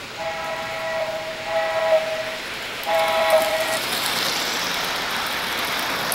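Electronic horn of an O-scale model train sounding twice, a long blast and then a shorter one, followed by the rolling rush of the train passing on the three-rail track as a lighted MTH Jordan spreader goes by.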